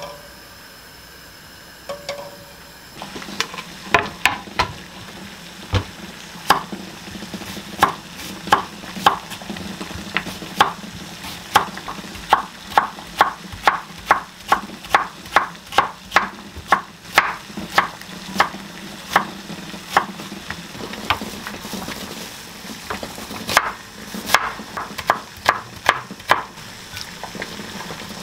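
Chef's knife slicing cucumber on a wooden cutting board: a string of sharp knocks, uneven at first, then a steady run of about two cuts a second, over a low steady hum.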